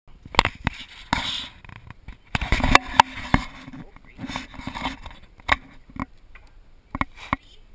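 Handling noise from a handheld camera: a run of sharp knocks and scraping rubs at irregular moments as it is moved about.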